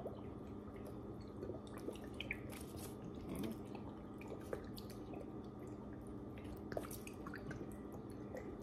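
Liquid smoke shaken from a bottle onto raw chicken pieces in a foil pan, with gloved hands handling the meat: faint scattered ticks and small wet drips. A steady low hum runs underneath.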